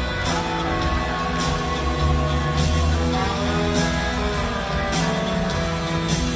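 Live rock band playing an instrumental stretch: electric guitars over bass and drums, with drum hits about once a second.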